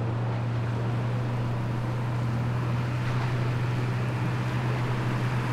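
Heavy engine running at a steady low drone, with a rough rumbling noise over it.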